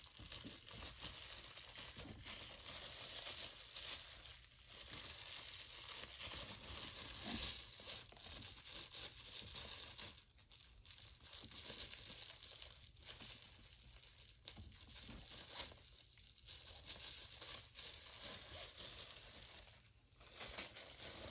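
Faint, irregular rustling and crinkling of packaging as a new table fan and its cord are handled and unwrapped.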